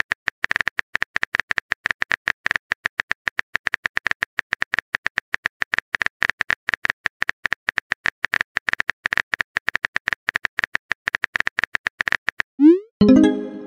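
Phone keyboard tapping sound effect: rapid, even clicks, several a second, as a chat message is typed out. Near the end the typing stops for a short rising whoosh and a brief message-sent tone.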